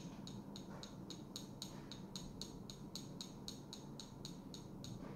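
Faint, even ticking, about four light ticks a second: a screwdriver tip tapping the face of an inductive proximity sensor. Each tap is a pulse that the digital counter registers.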